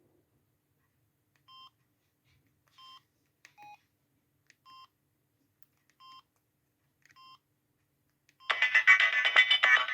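Samsung SGH-C130 mobile phone: about six faint short keypad beeps, a second or more apart, as its menu is stepped through. Near the end a loud ringtone melody starts abruptly.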